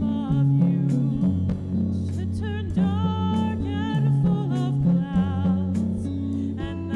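Live band playing a song: a woman singing with vibrato over electric guitar, a bass line stepping between notes and a drum kit keeping time.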